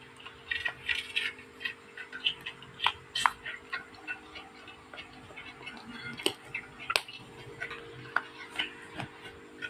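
Slime being squeezed and worked by hand, making irregular small sticky clicks and pops over a faint steady hum.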